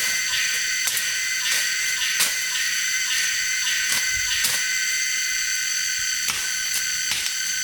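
A steady high-pitched buzz held on several tones, with irregular short knocks every half second to a second.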